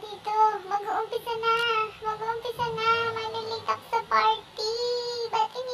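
A high-pitched, child-like singing voice over backing music, holding several long notes.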